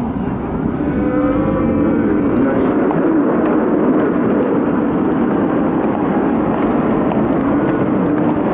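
Arena crowd cheering and shouting in reaction to a knockout, many voices overlapping. The cheer swells at the start and stays loud and steady.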